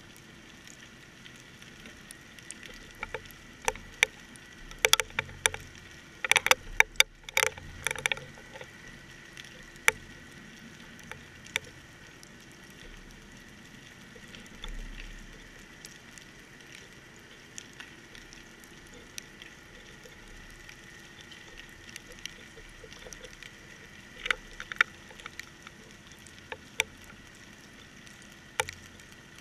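Sound picked up inside a GoPro's waterproof housing on a fishing rig deep underwater: a steady hiss with a faint steady high tone, broken by sharp clicks and knocks, a dense run of them several seconds in and a few more near the end.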